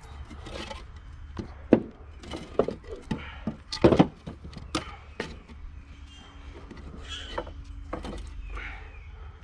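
Scattered knocks and clunks of tools and an upturned lawn mower being handled, the loudest about four seconds in.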